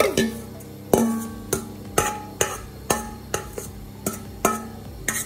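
A steel pot knocked again and again on the rim of a frying pan to shake grated courgette out, about a dozen knocks roughly two a second, each with a short metallic ring.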